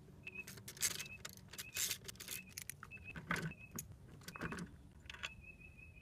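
Metal tools clinking and rattling against the scooter's exhaust and rear end in irregular sharp clicks, with a short high squeak repeated several times.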